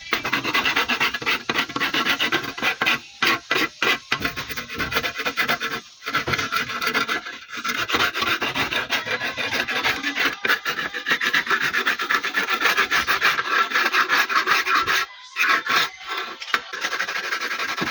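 Rapid back-and-forth scraping and sanding by hand on a removed engine part, a continuous rasp with a few short pauses. It is surface preparation before painting.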